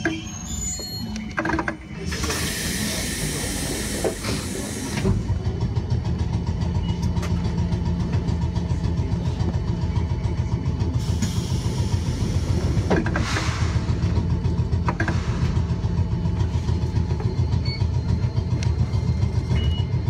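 Keifuku Electric Railroad (Randen) tram heard from inside the cab while standing at a station: a steady low hum that grows louder about five seconds in, with two spells of air hissing a few seconds long, and the tram starting to pull away near the end.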